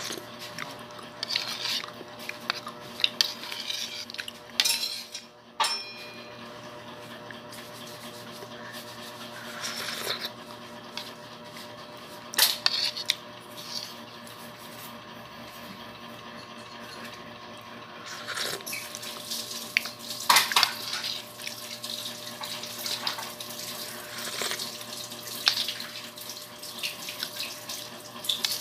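A metal spoon clinking and scraping in a bowl of thick binignit soup, with the wet slurping and mouth sounds of eating it, in scattered short bursts.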